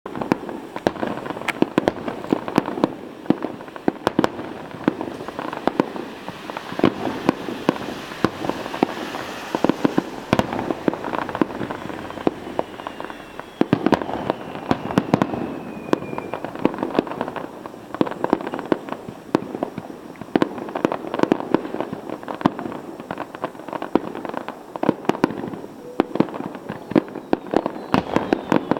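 Fireworks display: a dense, continuous run of bangs and crackling bursts overlapping one another, with a faint falling whistle about halfway through.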